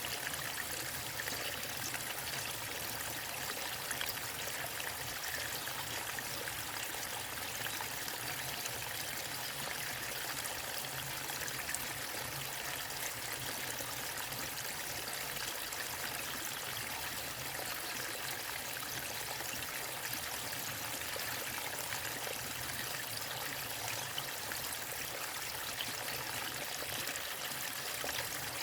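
Waterfall and river water running, a steady, unbroken rush.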